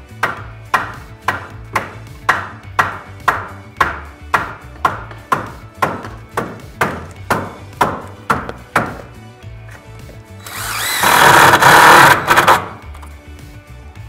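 A cordless impact driver runs for about two seconds near the end, driving a 2-inch screw through the door's head track into the wooden header. Before it, background music plays with a steady beat of about two strikes a second.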